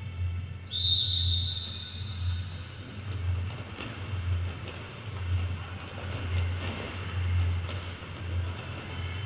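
Music with a bass-heavy beat pulsing about once a second, played over the hall's sound system. About a second in, a single long whistle blast from a referee's whistle is heard; it is steady and lasts about a second and a half.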